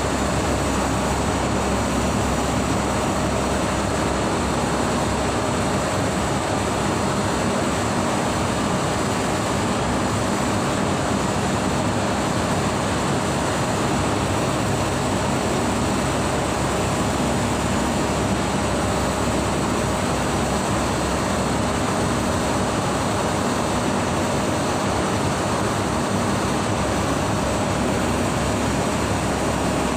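Steady, even noise of air-conditioning equipment running, with a faint steady hum; it does not change.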